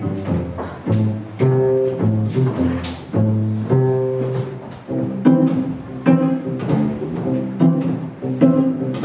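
A cello playing a lively tune alone, note after note, each note starting sharply.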